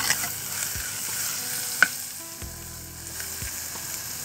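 Chopped onions, red chilies, curry leaves and lemongrass sizzling in hot coconut oil in an earthen pot, stirred with a spoon that clicks against the pot, with one sharper knock just under two seconds in.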